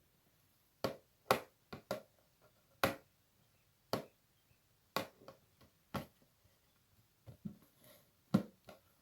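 Short, crisp rustles or crinkles from something being handled for ASMR, about a dozen, irregularly spaced, with quiet between them.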